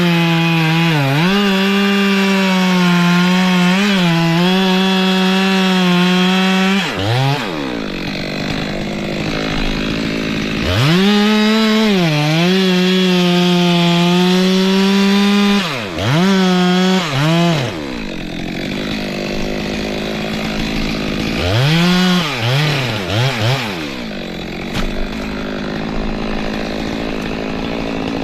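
Two-stroke chainsaw held at high revs, cutting wood, its pitch dipping briefly under load. It drops back to idle between cuts, three times, with short throttle blips in between.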